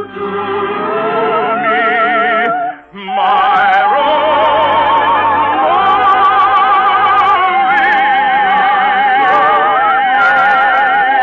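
Orchestral music with sustained melody lines played with heavy vibrato. The music breaks off briefly about three seconds in, then a new phrase starts and carries on at full level.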